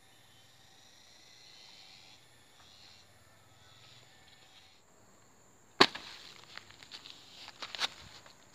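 Quiet outdoor ambience, then about two thirds of the way in a sharp knock followed by crackling and rustling of plastic mulch film, with a second sharp knock near the end.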